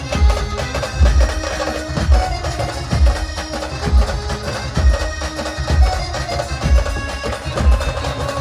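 Brass band playing an instrumental passage of a slow, sad song: held melody tones over a bass drum beating about once a second.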